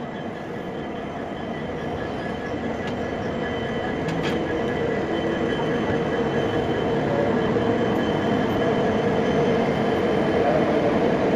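Passenger train's coaches rolling past on the track: a continuous rumble of wheels on rail with a faint steady whine, growing louder throughout.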